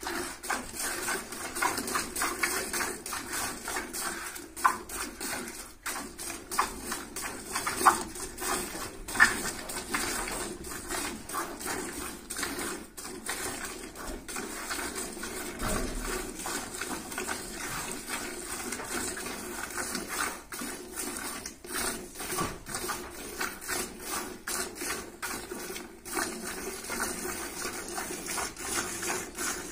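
Cow being milked by hand into a plastic bucket: alternating squirts of milk striking the milk already in the bucket, in an even rhythm of about two a second.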